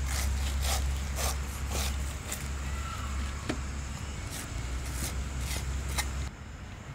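A steel cleaver slicing through grilled pineapple on a banana leaf: about ten short, crisp cuts, roughly two a second. A steady low hum runs beneath them and cuts off near the end.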